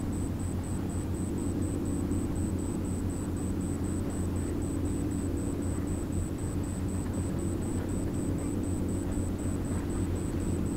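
Steady low rumble of a large car ferry's engines running as it gets under way, with a low hum and no change in level.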